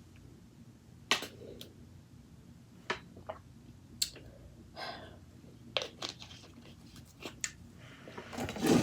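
Close-miked chewing, with sharp mouth clicks and small crunches about once a second, becoming louder and denser near the end.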